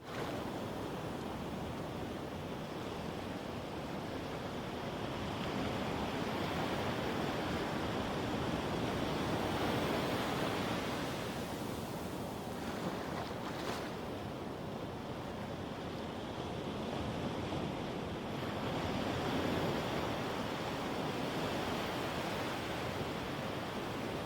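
Medium ocean waves breaking and washing up a sandy beach: a steady rush of surf that swells louder about ten seconds in and again near twenty seconds.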